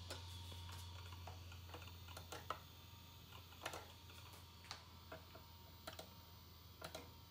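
Irregular sharp clicks from a PowerBook 500-series trackpad button being pressed, about a dozen in all, over a low steady hum.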